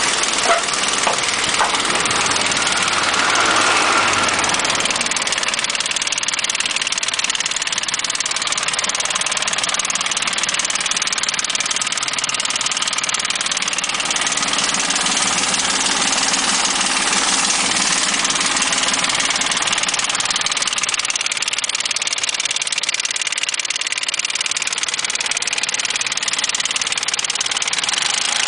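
Nissan Elgrand's VQ35DE 3.5-litre V6 engine running steadily, with an unexplained knocking from the engine that the owner is trying to diagnose.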